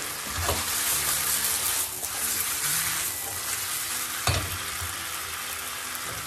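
Diced chicken breast and carrots sizzling in sunflower oil in a nonstick frying pan, a steady hiss of frying, with a sharp knock about half a second in and a louder one about four seconds in.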